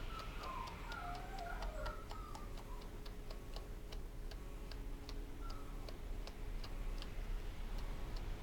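Wire pins of a small slicker brush tapping and lifting in a matted Yorkshire terrier coat. They make light, crisp ticks at a steady rate of about three a second. The brush is still catching the mat: the brush goes silent once the mat is gone.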